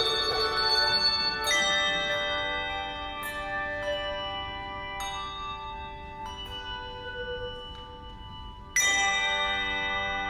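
Bells playing slow music: a struck note or chord every second or two, each ringing on and slowly fading, with the loudest strike near the end.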